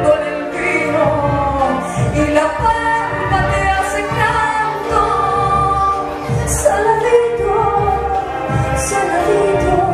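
A wind and percussion band plays a zamba, with clarinets, saxophones and brass over a drum kit, while a woman sings the melody.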